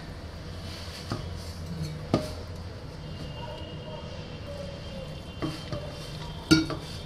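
Hands mixing pearl-millet flour and water into a crumbly dough in a stainless-steel bowl, with a few sharp clinks against the steel, the loudest near the end. A steady low hum runs underneath.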